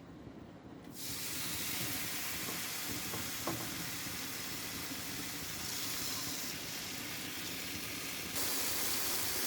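Steak sizzling in a frying pan: a steady frying hiss that starts abruptly about a second in and gets a little louder near the end.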